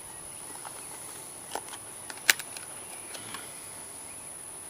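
A few light clicks and taps from handling a just-opened pipe tobacco tin, the sharpest about halfway through, over a steady high insect chirring.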